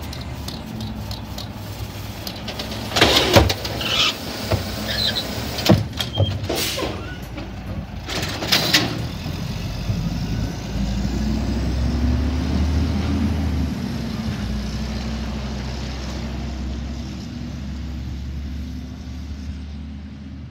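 Automated side-loader garbage truck at work: sharp clanks and bangs as the lifting arm shakes out the cart and sets it back down, then the truck's engine runs louder and revs up as the truck pulls away.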